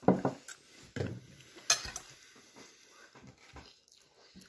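Person biting into and chewing a soft, tender cooked chicken thigh close to the microphone. There are muffled mouth-full sounds twice in the first second, then a sharp click and smaller wet chewing sounds.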